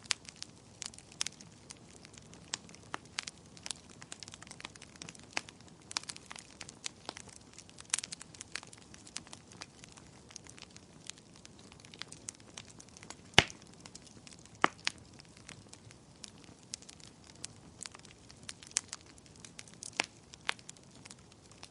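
Wood fire burning in a fireplace, crackling with irregular sharp pops and snaps over a faint hiss; one loud pop about two-thirds of the way through.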